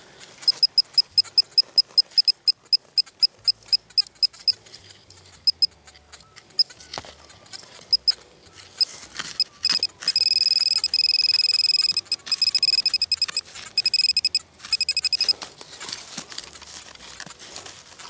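XP pinpointer beeping at a high pitch as it is probed around the hole wall. It beeps about five times a second at first, then sparsely, then sounds a steady tone about ten seconds in and fast pulses until about fifteen seconds, signalling a metal target close to the tip. Between the beeps come soft scratches of fingers in soil.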